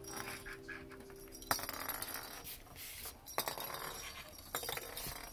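Plastic lattice toy ball clicking and clattering on a wooden floor as a budgerigar pushes it about, with a few sharp clicks, the loudest about a second and a half in, among softer rattles.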